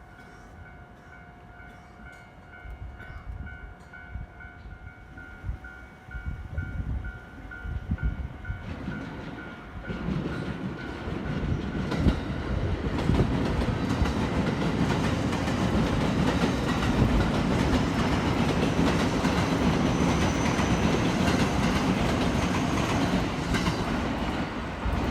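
Japanese level-crossing warning bell ringing in an even, repeating beat while a JR Hanwa Line train approaches. From about ten seconds in, the train passes through the crossing with a loud rumble and wheel clatter that drowns out the bell.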